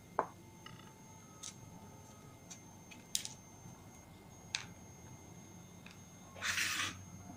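A steel knife scraping the large seeds out of halved bitter gourd (karela), with a few faint clicks and scrapes spread out. Near the end there is one louder, half-second scrape as the knife is brought to a plastic bowl.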